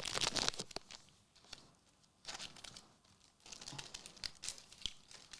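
Foil Pokémon booster-pack wrapper crinkling and tearing as it is handled, in three short bursts of rustling with brief pauses between them.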